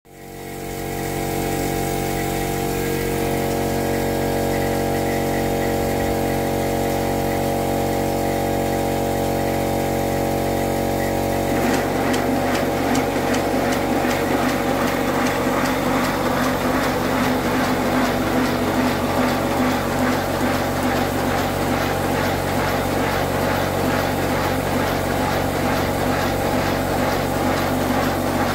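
A steady machine hum for the first third. Then compressed air drives the cylinders and valve gear of a 7¼-inch model 41 018 steam locomotive chassis running free, adding a fast, even beat of hissing air exhaust and rattling rods over the hum.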